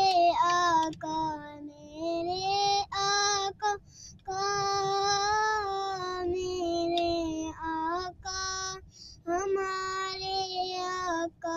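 A boy singing a naat, an Islamic devotional song, solo and unaccompanied, in long held notes with short breaks between phrases.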